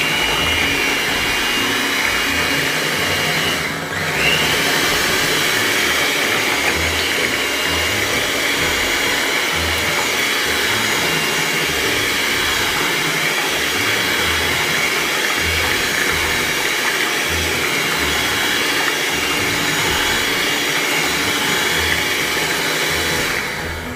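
Black+Decker electric hand mixer running steadily, its beaters whipping cassava batter in a stainless steel pot. The whir dips briefly about four seconds in and stops near the end.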